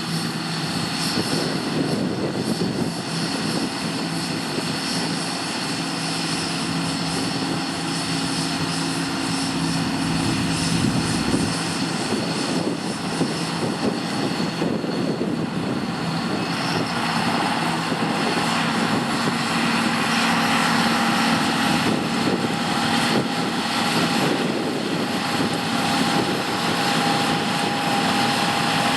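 John Deere T560 combine harvester running under load, a steady engine drone mixed with the whine of its machinery. A higher whine joins about two thirds of the way in, and the sound grows slightly louder.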